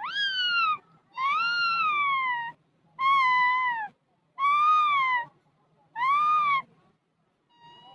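Alexandrine parrot calling five times, each call drawn out for about a second and arching up then down in pitch, with short pauses between.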